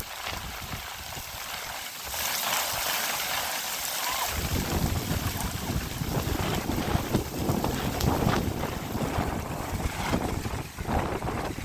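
Wind buffeting the microphone outdoors: a rough, gusty rushing noise. Its low rumble is missing for the first four seconds, then comes back.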